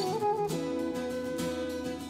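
Instrumental background music: a short melody line settling onto a long held note.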